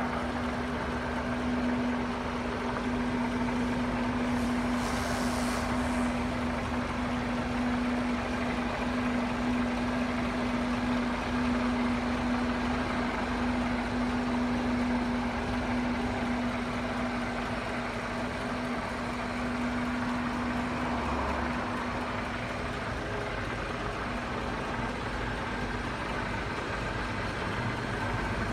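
Scania R124 heavy truck's diesel engine idling steadily, with a steady droning tone over it. A brief hiss comes about five seconds in.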